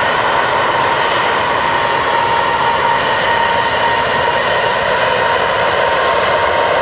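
Airbus A380-861's four Engine Alliance GP7270 turbofans running: a loud, steady jet roar with an even high whine on top.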